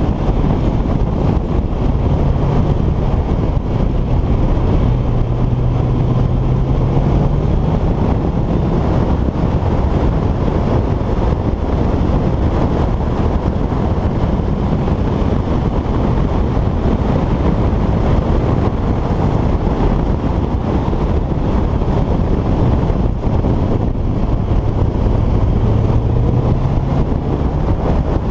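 A vehicle's engine running steadily, its hum shifting slightly in pitch now and then, under a heavy rumble of wind on the microphone.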